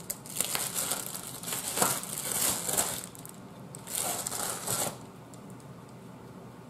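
Crinkling and rustling of an Amazon Prime mailer bag being handled and rummaged through, in several irregular bursts that stop about five seconds in.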